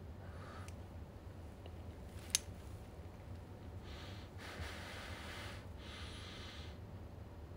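A man sniffing long and hard with his nose pressed into a doll's cloth dress: two drawn-out breathy inhalations in the second half. A single sharp click comes a little over two seconds in.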